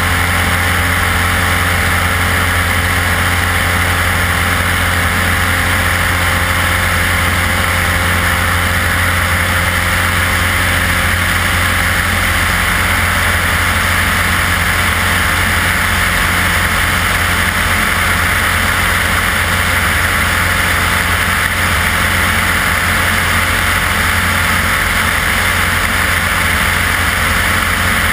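Light aircraft's propeller engine running steadily in flight, with a constant drone and the hiss of air rushing past.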